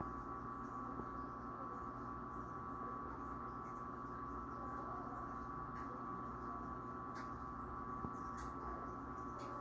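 Steady hum of reef aquarium pumps with an even high-pitched whine, and a few faint ticks near the end.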